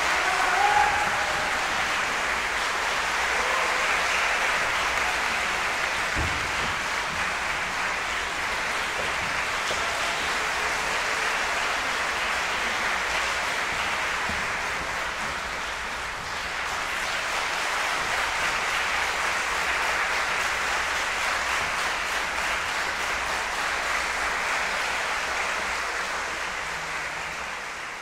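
Audience applauding steadily. The applause dips slightly around the middle, swells again, and fades out at the end.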